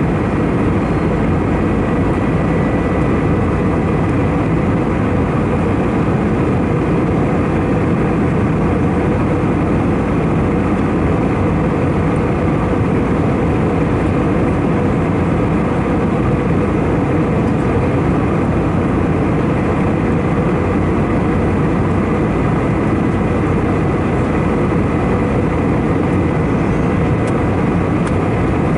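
Steady in-flight cabin noise of an Airbus A319-111: a constant rush of airflow and engine drone, with a faint steady high tone.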